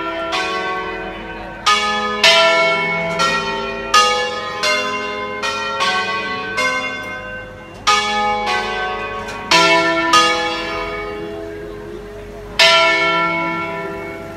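Five-bell peal of church bells cast by De Poli in 1949 and tuned in E, rung by hand in a Brescian-style concerto. The bells strike one after another in a melodic sequence, about two to three strokes a second with some louder accented strokes, each note ringing on under the next. A last loud stroke near the end is left to ring out.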